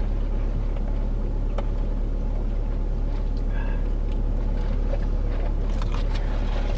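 Steady low hum of room or recording noise, with a few faint clicks of eating about a second and a half in and again near the end.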